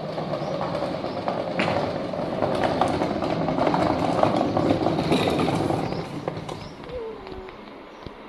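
Hard plastic wheels of a child's swing car rolling over concrete paving stones: a steady rattling rumble full of rapid small clicks, fading after about six seconds.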